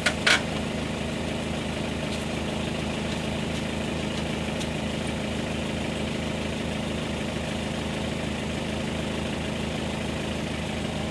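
Engine idling steadily, with one sharp click just after the start.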